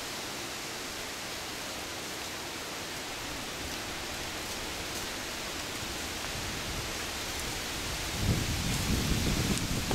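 Steady rushing of wind through the woods, with wind buffeting the microphone in low rumbles from about eight seconds in.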